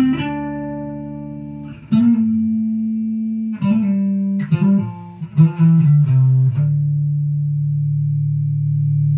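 Fenderbird-style electric bass (mahogany Thunderbird-shaped body, Gibson Thunderbird pickups, maple bolt-on neck) picked in the upper register through a 1970s Fender Bassman 10: a few single notes, a quicker run of notes about halfway, then one note held and left ringing for several seconds, showing the bass's long sustain.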